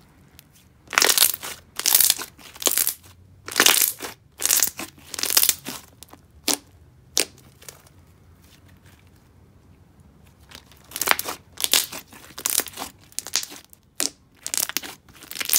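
Hands stretching, pulling and squishing a thick, glossy slime, making sticky crackles and pops in quick bursts. There are two runs of handling with a quieter pause of a few seconds between them.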